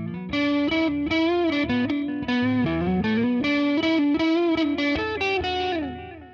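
1984 Gibson ES-175 hollow-body electric guitar playing a picked melodic phrase through a Deadbeat Sound Delay Lay Lay analog delay pedal that is switched on, each note followed by echoing repeats. Near the end the playing stops and the delay repeats trail away.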